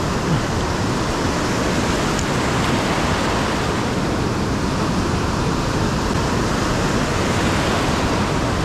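Steady rush of ocean surf: foamy broken waves washing in and out around the angler's legs in shallow water.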